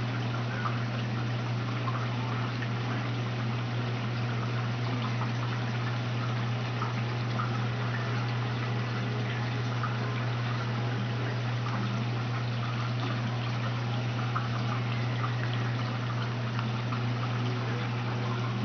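Aquarium filter running: a steady low hum with water trickling and splashing over it.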